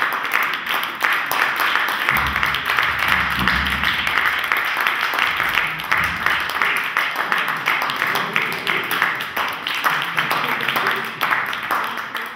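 Audience applauding steadily, a dense patter of many hands clapping, with a low rumble about two seconds in.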